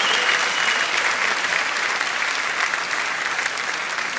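Arena crowd applauding, easing off slightly toward the end.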